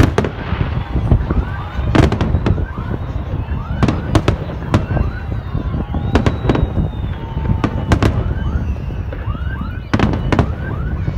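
Aerial fireworks display: shells bursting in a dense, irregular run of sharp bangs over a steady low rumble.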